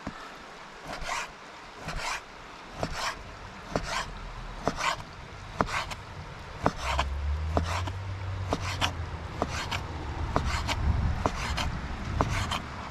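Kitchen knife slicing through raw tuna and striking the cutting board, one stroke about every second.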